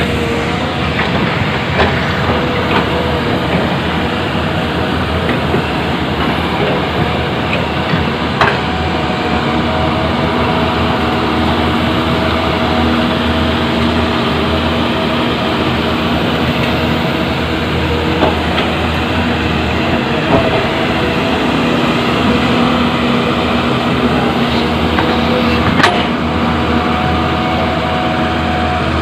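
Caterpillar 320D2 hydraulic excavator's diesel engine running steadily at work, with a couple of sharp metal knocks, one about eight seconds in and one near the end.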